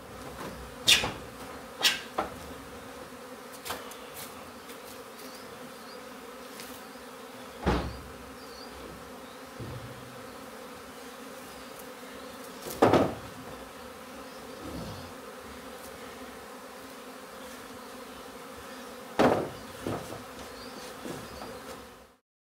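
Steady hum of a swarm of honey bees flying around an opened hive, with scattered sharp knocks of hive boxes and tools being handled, the loudest about 8, 13 and 19 seconds in. The sound cuts off suddenly just before the end.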